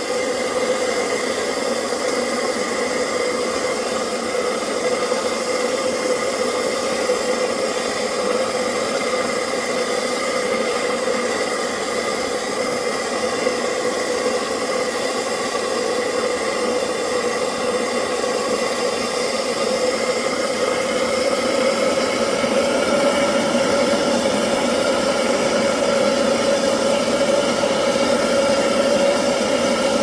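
Home-made waste-oil burner running steadily: a constant droning hum with a rushing hiss from its forced air and flame, rising slightly in pitch and loudness in the last third.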